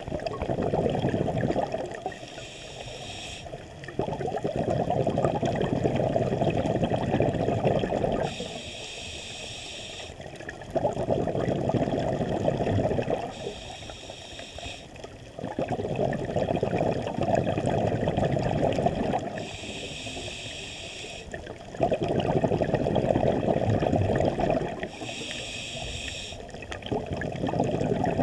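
Scuba diver breathing through a regulator underwater: a short hissing inhale, then a longer rumble of exhaled bubbles, repeating about every five to six seconds.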